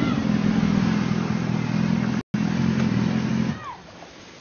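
BMW S 1000 RR sportbike's inline-four engine running at a steady, low pitch as the bike rides up and pulls in, then switched off about three and a half seconds in. The sound drops out completely for an instant just after two seconds in.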